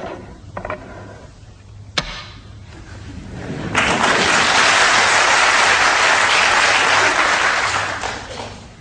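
Audience applauding: a quieter stretch with one sharp crack about two seconds in, then the applause swells up loud for about five seconds and dies away near the end.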